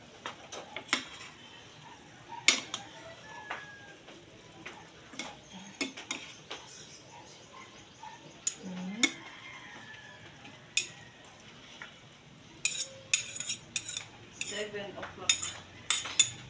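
Metal spatula clinking and scraping against a pan while stir-frying pancit noodles with vegetables. The strikes are scattered at first and come in quick runs near the end.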